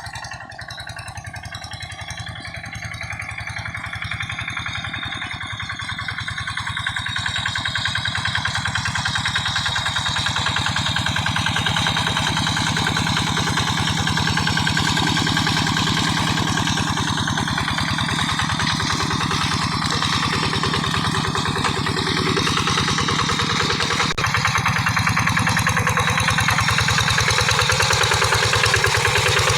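Quick G1000 two-wheel hand tractor engine running with a rapid, even firing beat. It grows louder over the first third, then holds steady.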